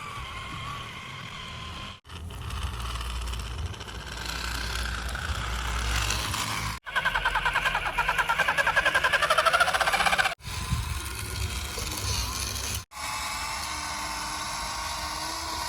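Motor and vehicle running sounds in several short clips cut abruptly one after another. There is a steady low rumble and hum, and in the middle clip a fast pulsing rattle of about eight to ten beats a second.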